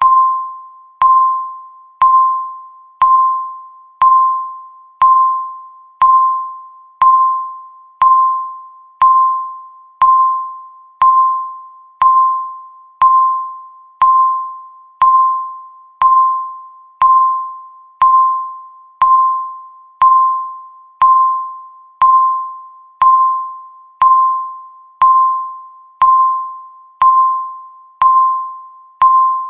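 Countdown timer's tick sound, one per second: each is a sharp click followed by a short, ringing, bell-like tone that dies away within about half a second, repeating evenly.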